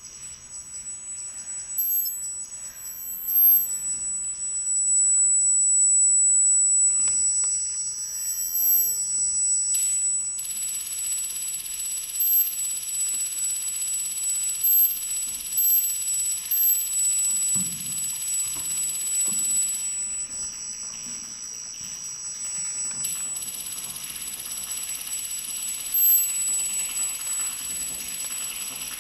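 Abstract electronic dance soundtrack: a steady piercing high-pitched tone, with layers of high hiss that cut in and out several times and a few soft low thuds.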